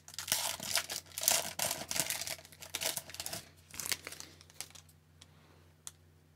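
Foil hockey card pack wrapper being torn open and crinkled as the cards are pulled out, an irregular crackling rustle that dies away about four and a half seconds in. A faint tick follows near the end.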